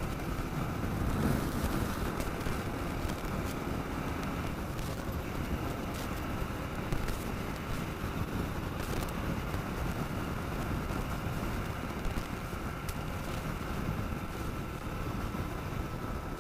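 Kawasaki KLR 650 single-cylinder engine running steadily at road speed, with wind rushing over the microphone and a few brief clicks.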